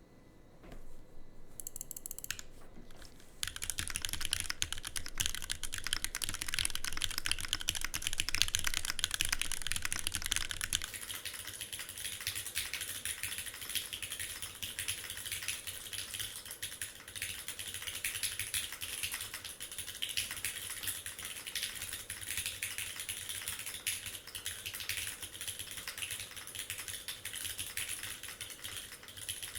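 Continuous typing on a custom mechanical keyboard (SM x TGR LIN) with lubed Gateron X linear switches, 54g springs and GMK Dolch keycaps. A rapid stream of keystroke clacks starts lightly about a second in and becomes steady, dense typing from about three and a half seconds on.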